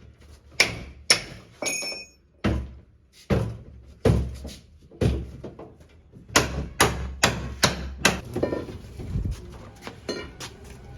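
Repeated thuds and knocks of blows struck on a machine or its packing, about a dozen in all. They are irregular at first, then come in a quicker run of about two and a half a second past the middle, followed by lighter clatter.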